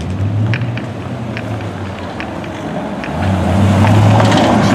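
Car engines running at low revs in street traffic. From about three seconds in, a louder engine and exhaust take over as a Chevrolet Camaro drives past, and they grow louder near the end.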